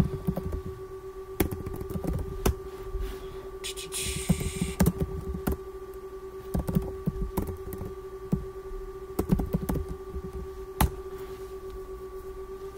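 Computer keyboard being typed on: irregular key clicks as terminal commands are entered, over a steady hum.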